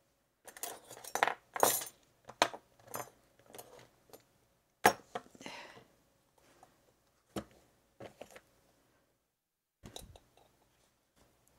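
Irregular small metallic clicks, clinks and rattles as a padlock's brass core, key still in it, is handled on a work mat and prodded with tweezers.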